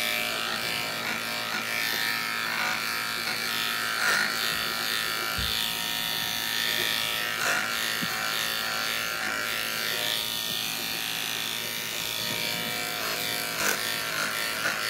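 Aesculap Durati cordless clipper running steadily with a wide blade at about 3500 strokes a minute, shaving through dirty, matted dog hair. The buzz holds an even pitch, with a few brief louder moments as the blade works through the mats.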